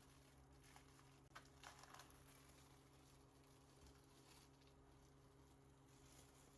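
Near silence: faint room tone with a steady low hum, and a few faint light ticks about a second and a half in.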